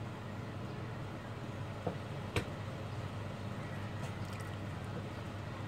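Steady low background hum, with two short clicks a little after two seconds in, the second one sharper, and a few faint ticks near four seconds.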